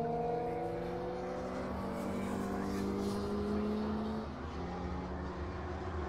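Classic racing motorcycle's engine at speed, receding down the straight: its steady note slowly falls in pitch and fades, dropping away further about four seconds in.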